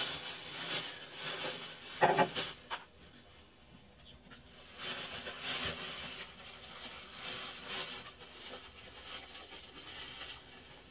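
Handling noises: rustling and rubbing, with one sharp knock about two seconds in.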